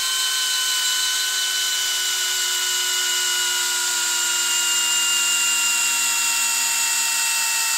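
Hilti SFD 2-A12 12-volt brushless drill driver in low gear (speed 1), driving a long TimberLOK screw into end-grain wood. It gives a steady motor whine whose pitch sinks slowly as the motor slows under the growing load.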